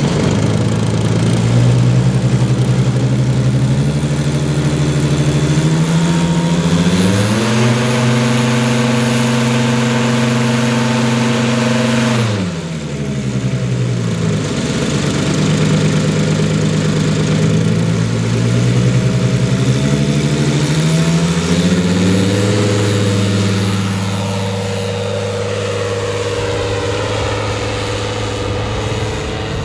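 Engine of a large radio-controlled Udet U 12 Flamingo biplane model driving its propeller: it is run up in steps to a high steady pitch, throttled back sharply about twelve seconds in, then opened up again in steps as the model takes off and flies away.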